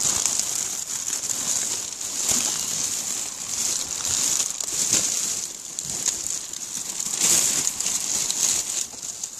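Plastic bags and clear plastic film crinkling and rustling as they are handled and pulled about, in uneven bursts.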